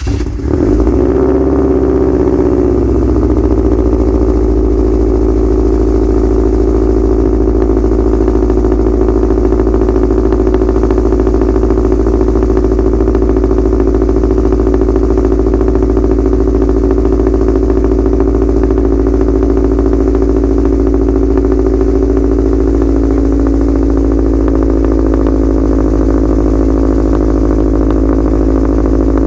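2008 Subaru WRX STi's 2.5-litre turbocharged flat-four, breathing through aftermarket headers, an uppipe and a 3-inch catless turboback exhaust, catching on a cold start. Its revs flare and waver for the first couple of seconds, then it settles into a steady cold idle.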